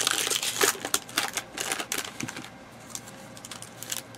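Clear plastic trading-card pack wrapper crinkling and crackling as it is torn open and handled, rapid and busy for about two and a half seconds, then only a few light clicks as the cards are handled on the mat.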